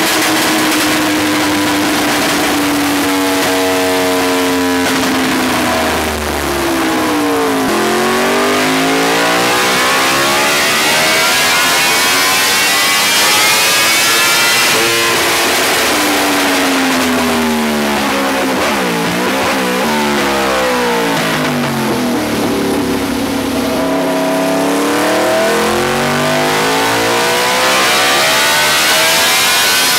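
Yamaha YZF-R1M's crossplane inline-four engine, through an Austin Racing full exhaust system, revving hard during a chassis dyno run. Its pitch climbs and falls several times, with an abrupt change about halfway through.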